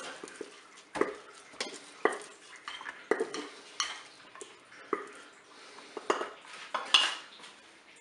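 A kitchen utensil scraping and clinking against the metal inner pot of a Cookeo multicooker as cooked rice is scooped out into a colander: irregular short scrapes and knocks, about one every half second to second, the loudest scrape near the end.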